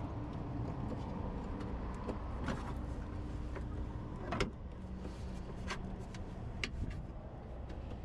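A few small clicks and handling noises as an ignition module's plastic wiring connector and test probe are worked by hand. The loudest click comes about four and a half seconds in, over a steady low hum.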